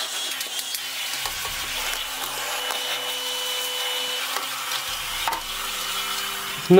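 Rowenta Swift Power Cyclonic bagless canister vacuum cleaner running steadily, a hissing rush of suction, with a faint high whine for a second or so in the middle.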